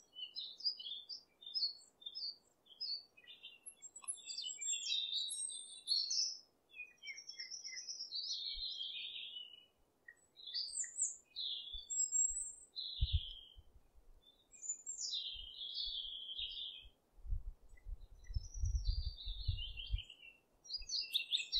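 Birds chirping and singing in quick, varied phrases of high chirps and trills. A low rumble comes in underneath now and then, longest for a few seconds near the end.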